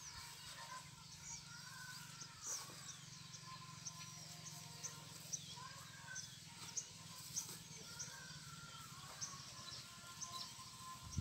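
Birds chirping and calling: many short high chirps scattered through, with a few lower whistled notes, over a faint steady low hum.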